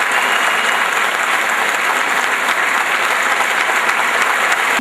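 Audience applauding steadily, a dense crackle of many hands clapping, which cuts off abruptly at the end.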